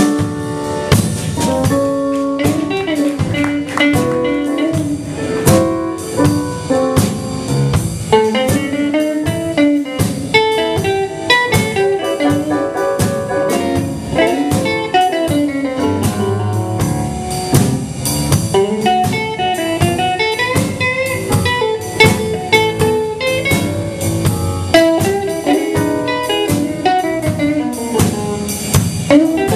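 Live blues band playing an instrumental stretch with no singing: electric guitar, digital piano and drum kit, with a steady beat and bent, sliding notes.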